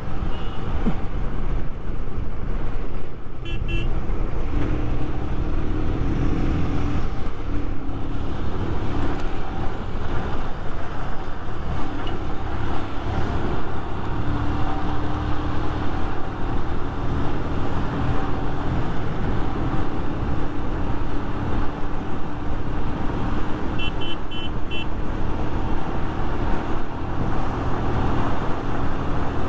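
Motorcycle engine droning steadily at highway cruising speed, mixed with heavy wind rush on the microphone. Four quick high beeps sound about 24 seconds in, with a short high blip earlier, around 3 seconds in.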